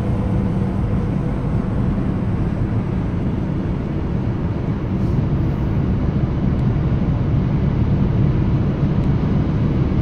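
Steady road noise of a car cruising at motorway speed, heard from inside the cabin: low tyre and engine rumble.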